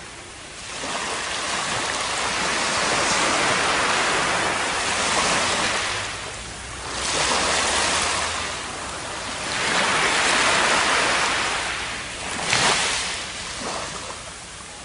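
Waves washing up a sandy beach, the surf swelling and ebbing in surges a few seconds apart, with a sharper splash about twelve seconds in.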